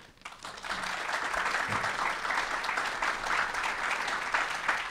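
Audience applauding, building up about half a second in and then holding steady.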